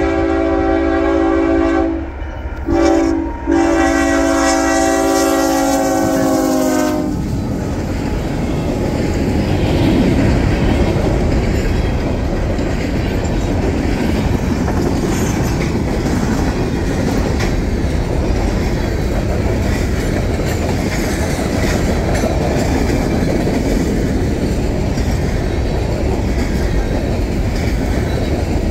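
Diesel freight locomotive horn sounding a chord of several notes, the closing part of a grade-crossing signal: the end of a long blast, a short one, then a long one that stops about seven seconds in. After that, the freight cars roll past close by with a steady rumble of wheels on the rails.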